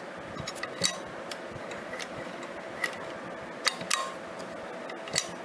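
A few separate sharp clicks and taps, about six spread over the few seconds, from hands handling a straight-stitch sewing machine and setting the cloth under its presser foot, over a faint steady hum. The machine is not yet stitching.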